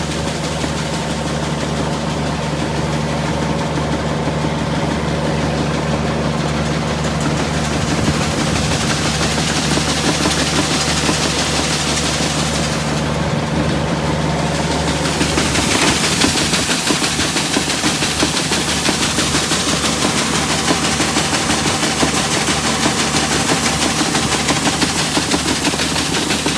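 Vehicle engine running steadily while driving, heard from inside the cab, with constant road noise and rattle; the road hiss grows louder around the middle.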